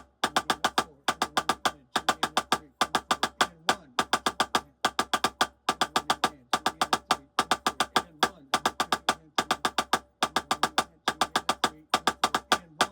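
Drumsticks playing single-stroke fives: quick, evenly alternating groups of five dry, sharp strokes, each group followed by a short gap, repeating steadily throughout.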